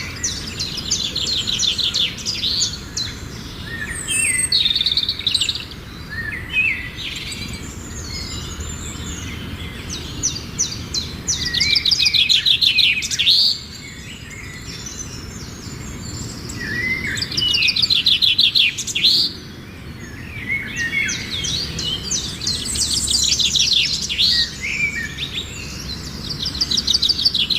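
Wild birds singing: fast trilled phrases of rapidly repeated high notes, each a second or two long, come again and again, with scattered chirps between them.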